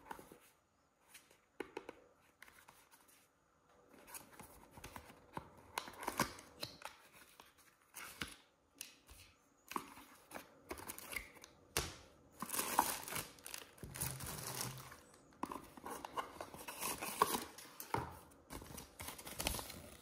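Irregular rustling, crinkling and tearing of packaging being handled, with sharp clicks in between. The loudest stretches come about two thirds of the way in and again near the end.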